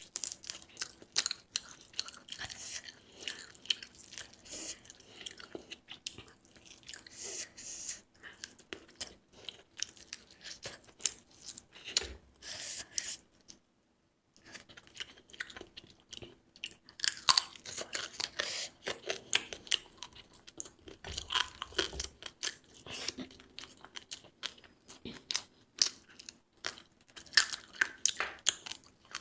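Close-miked mukbang eating sounds: a person chewing and biting food, with dense, irregular short crisp clicks and smacks. The sound cuts out completely for a moment about fourteen seconds in.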